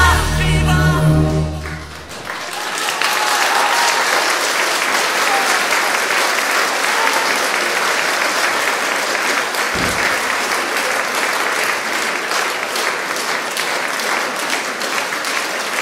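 A song's final held note and backing music stop about two seconds in, then a concert audience applauds steadily.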